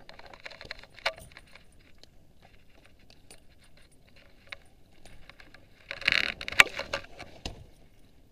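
Handling noises from fishing tackle as a caught fish is held and unhooked by hand: a run of small clicks and rattles, with a louder clatter and one sharp clack about six seconds in.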